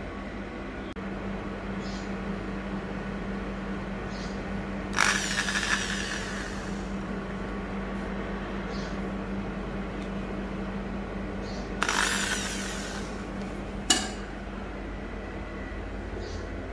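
Handheld power drill run in two short bursts of about two seconds each, with a sharp knock soon after the second, over a steady hum.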